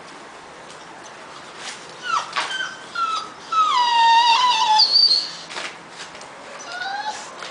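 American Pit Bull Terrier puppies, about four weeks old, whining: a few short high whines about two seconds in, then one long falling whine, and a shorter rising whine near the end. A few light taps come between the whines.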